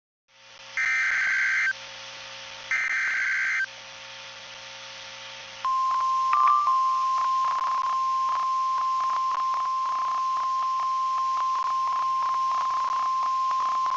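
NOAA Weather Radio emergency alert heard through a radio receiver: two short warbling data bursts of the SAME alert header, then the steady single-pitch 1050 Hz warning alarm tone for about nine seconds, over radio hiss and crackle. This is the signal that sets off alert receivers ahead of an urgent warning broadcast.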